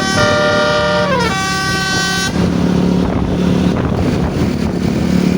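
A bus's basuri multi-tone musical horn (telolet) plays a melody of held notes, with a short downward slide midway, then cuts off suddenly a little over two seconds in. Engine and road noise carry on after it.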